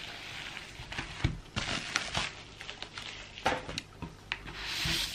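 Crinkling and rustling of a bubble mailer and its wrapping being opened and handled, with irregular crackles and small taps.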